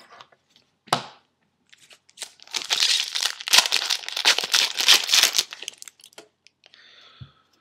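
A foil trading-card pack wrapper being torn open and crinkled, a dense crackling that starts about two seconds in and lasts about four seconds.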